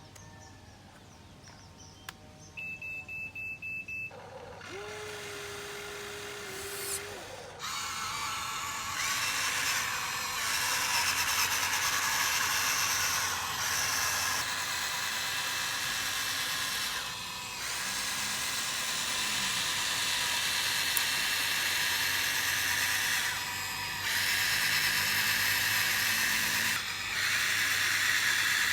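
Small electric motors and gearboxes of a Huina 1593 RC excavator whining as it works, the pitch and level shifting with brief drops. A quick run of short beeps comes a few seconds in, followed by a short steady hum, before the motor noise starts.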